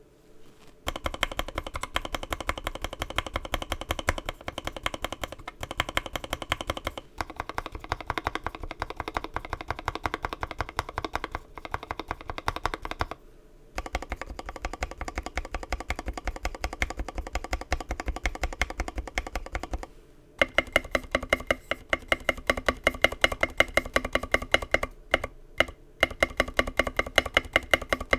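Fast typing on a Mark 65 mechanical keyboard with an aluminum plate and Gateron Milky Yellow linear switches, lubed and filmed: a quick, continuous run of keystrokes with a couple of short pauses. About twenty seconds in the strokes become sharper and louder.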